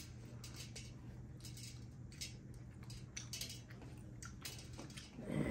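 Eating with the hands: fingers mixing rice and curry on metal plates, with scattered light clicks, squishes and wet chewing sounds.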